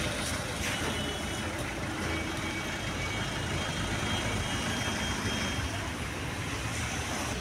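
Steady traffic noise of running vehicle engines, with a low rumble and no single event standing out.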